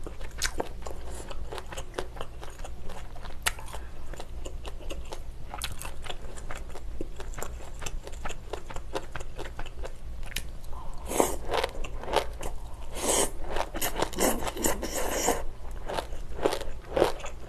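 Close-miked mouth sounds of eating: steady wet chewing with many small clicks, then a louder stretch of about four seconds starting around eleven seconds in as noodles are slurped.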